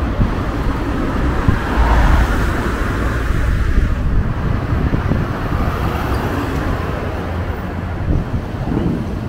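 City street traffic: motor vehicles passing on a wide avenue, a steady rumble that swells about two seconds in.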